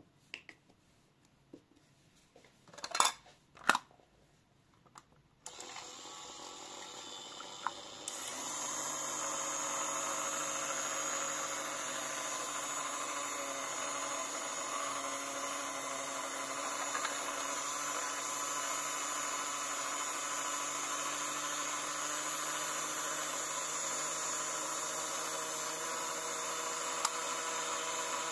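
Two sharp clicks, then a washing machine starts up: a steady running hum and whine over a hiss, which steps up louder about eight seconds in and holds steady.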